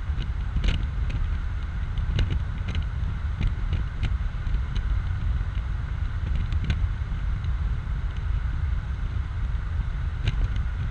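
Open-top BMW Z4 roadster driving at road speed: steady wind and road noise, with a heavy low rumble of wind buffeting the microphone. Scattered light clicks and ticks run through it.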